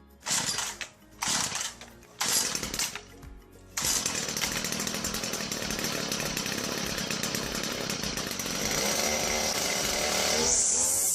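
A small engine or power tool revving in short bursts, then running continuously at high speed, with music.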